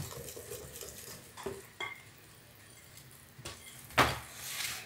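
Wire whisk stirring flour into a thick cake batter in a glass bowl, with light clicks of the whisk against the glass and a louder knock about four seconds in, followed by a short swish.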